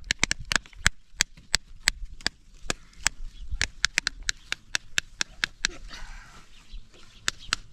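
A quick, irregular run of sharp taps or knocks, about four a second.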